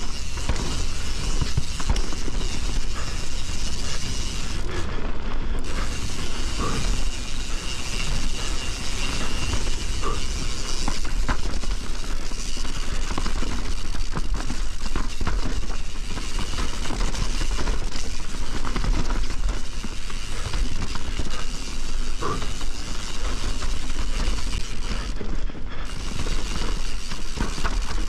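Enduro mountain bike ridden fast down a wet, rough trail: wind buffeting the body-mounted camera's microphone in a constant low rumble, with tyres rolling over dirt and the bike's chain and parts clattering over bumps.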